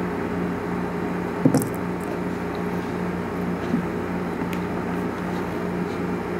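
Steady low hum and hiss of indoor room tone, with a short knock about one and a half seconds in.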